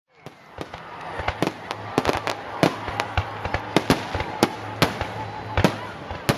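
Fireworks display: a rapid, irregular string of sharp cracks and pops, several a second, over a continuous crackling hiss.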